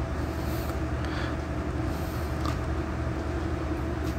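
Steady low rumble and hum of background machinery or room noise, with a faint steady tone above it and a few light taps from the metal power-supply case being handled.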